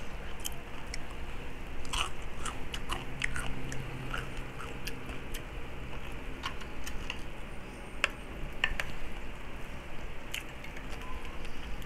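Close-up chewing of crispy pata (deep-fried pork leg), with irregular crunches of the crackling skin.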